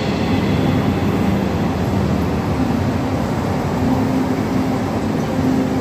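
Soundtrack of the immersive projection show playing through the room's speakers: a steady low rumble with held low notes.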